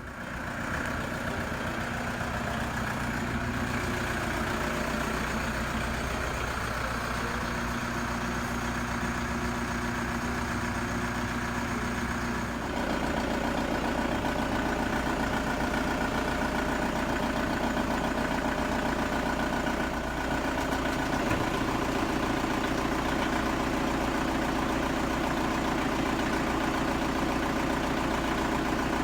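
Toyota HiAce KDH200 van running, a steady engine and drivetrain hum that steps up in level about twelve seconds in.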